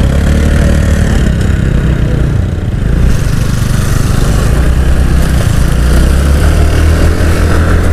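Two-wheeler engine running on the move, under a steady heavy low rumble.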